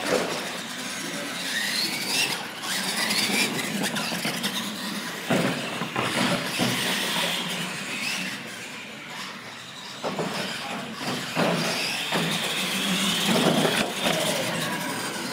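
Radio-controlled monster trucks racing on a smooth concrete floor, their motors and gears giving a high whine that rises and falls with the throttle. A few sharp thumps come as they land off the ramps.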